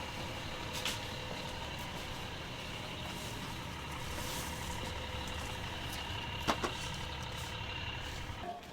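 Steady low background rumble with a faint high whine running through it, broken by two faint clicks, one about a second in and one near six and a half seconds.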